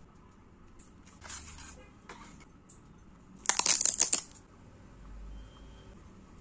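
Clear plastic packaging around an acrylic standee crinkling as it is handled: two soft rustles, then a loud burst of crackling about three and a half seconds in that lasts under a second.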